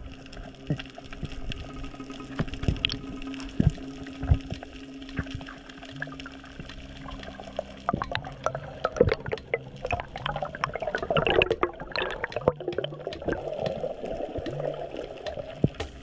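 Underwater sound picked up by a diver's camera: water noise with scattered clicks and crackles, and a denser stretch of bubbling about ten to thirteen seconds in.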